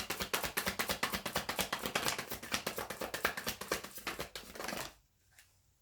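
Tarot deck being shuffled by hand: a rapid run of crisp card clicks, about ten a second, that stops about five seconds in.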